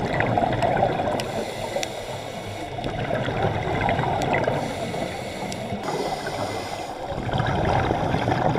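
Muffled underwater water noise with gurgling, recorded below the surface among scuba divers whose exhaled bubbles are rising. A few faint clicks sit over the steady rush.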